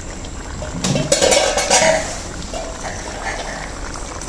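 A metal slotted ladle clinks and clatters against a metal cooking pot for about a second, starting about a second in, over the low, steady bubbling of a fish curry simmering down in the pot.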